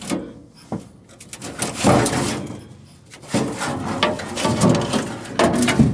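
Clanking and scraping of metal tools and parts during repair work: a few sharp knocks, then longer stretches of rough scraping and rattling.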